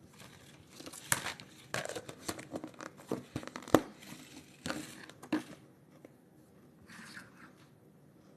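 Crinkly packaging handled close up and torn, a run of crackling with sharp clicks for about five seconds, then a brief crinkle near the end.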